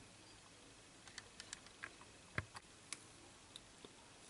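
Faint scattered clicks and ticks, about eight in all, from small parts and alligator-clip test leads being handled on a bench, the loudest a sharp click about two and a half seconds in.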